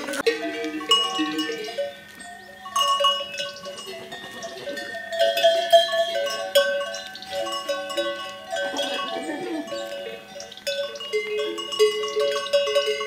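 Many goat bells clanking and ringing at once at different pitches as the herd moves about, with a goat bleating now and then.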